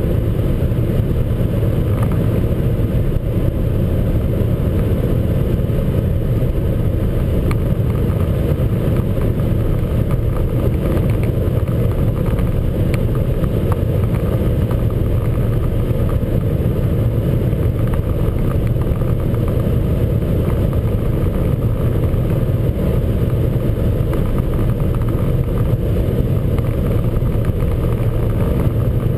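Cabin sound of an Opel Vectra A's 1.8-litre, 90 PS four-cylinder engine held near top speed, about 195 km/h at just under 5,000 rpm: a steady, unchanging drone of engine mixed with wind and road noise.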